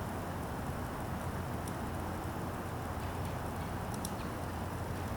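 Steady low background noise with a few faint clicks, heard while the pressure builds inside the pumpkin before it bursts.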